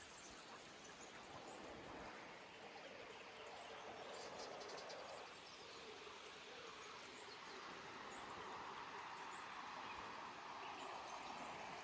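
Faint, steady rush of running water.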